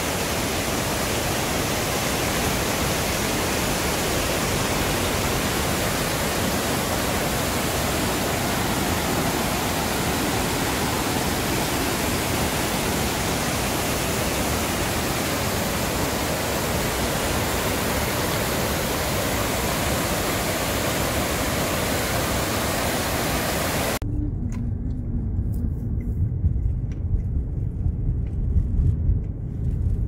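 Låtefossen waterfall and its river rushing over boulders, a steady, even rush of water. About 24 seconds in it cuts off suddenly, giving way to a low, uneven rumble.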